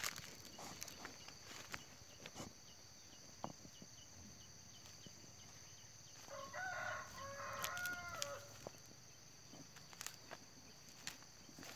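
A rooster crows once in the middle, a call of about two seconds. Scattered footsteps crunch on dry stalks, over a steady high-pitched background drone.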